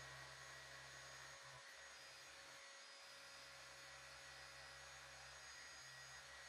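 Faint, steady whirr of a Festool electric orbital sander and its dust extractor, stripping paint to bare metal on a car fender.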